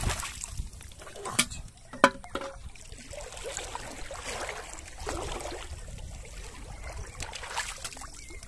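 Shallow pond water splashing and trickling as hands move through it, with two sharp knocks about one and a half and two seconds in.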